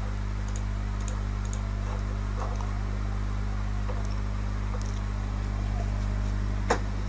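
Light clicks of a computer mouse and scroll wheel over a steady low electrical hum, with one sharper click near the end.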